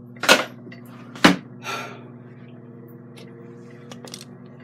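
Ninja Foodi XL Grill running in air-fry mode at 400 °F, a steady fan hum. Two sharp knocks about a second apart, the second the loudest, and a short rustle just after come from the camera being handled.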